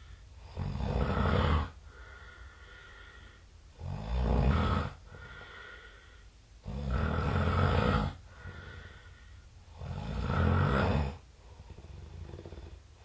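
Strange-sounding snoring: four loud snores, each about a second long, come roughly every three seconds. Between them, fainter breaths carry a thin whistling tone.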